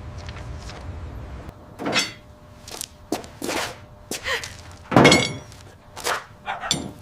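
A series of irregular thuds and knocks, about eight of them, the loudest about five seconds in.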